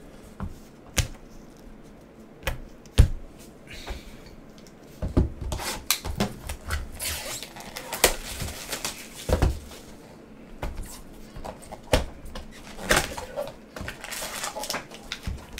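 Trading cards and a cardboard box handled by gloved hands: a few sharp clicks and taps of cards and cardboard on the table, then about five seconds in, stretches of rustling and scraping as the box and its packaging are moved about, with more clicks near the end.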